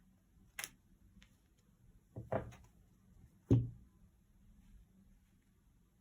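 A few short handling knocks and rustles on a table, the loudest a soft thud about three and a half seconds in.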